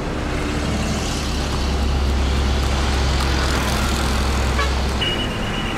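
Road traffic with a heavy engine's low, steady rumble. About five seconds in the rumble stops and a steady high tone begins.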